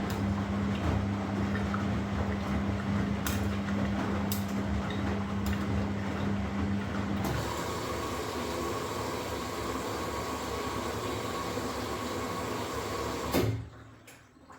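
Washing machine running, with a steady low motor hum and a few sharp knocks. The hum shifts about seven seconds in, and the sound cuts off with a click near the end.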